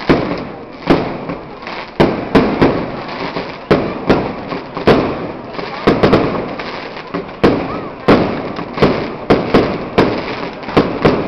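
Fireworks going off: an irregular run of loud, sharp bangs, about two a second, each trailing off in a short echo.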